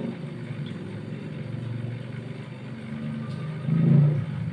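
A low motor drone with several even pitched lines, swelling louder about four seconds in.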